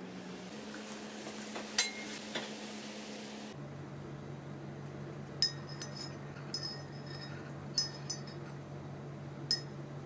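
Hot water poured from a ceramic teapot into a ceramic mug for about three seconds, with a couple of light clinks. Then a metal teaspoon stirs in the mug, clinking against the ceramic about six times.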